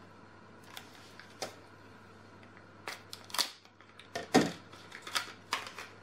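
A small cardboard box being opened and a nail polish bottle handled: a string of sharp clicks and taps, the loudest about two-thirds of the way through.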